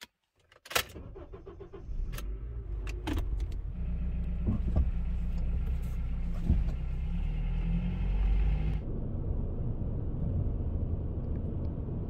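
Clicks of a seatbelt latching and the automatic gear selector being moved in a Honda Element, then the car pulling away and driving: steady low engine and road rumble inside the cabin. About three-quarters of the way in, a higher hiss cuts out suddenly, leaving the low rumble.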